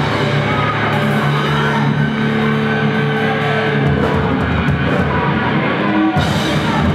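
Live heavy rock band playing loud: electric guitars, bass and drum kit together, with held notes over the drums.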